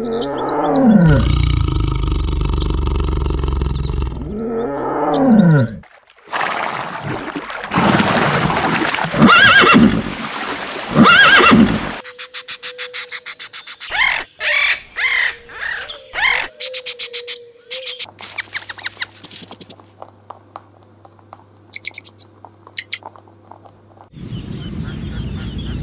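A run of different animal calls, one after another, changing abruptly every few seconds.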